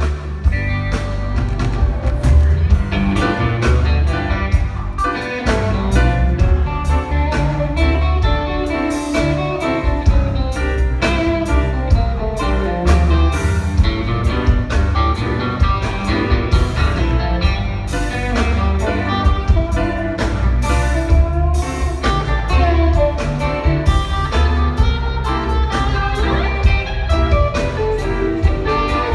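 Live rock band playing through a theatre PA: electric guitars, bass, drums and keyboards, with a bluesy groove that runs on without a break.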